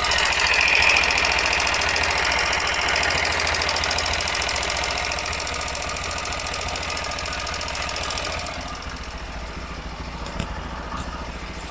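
TVS Apache RTR 160 4V's single-cylinder four-valve engine running with a rapid mechanical ticking, louder for most of the stretch, then dropping to a quieter idle about eight and a half seconds in. The mechanic takes the noise for a tappet or rocker-arm sound.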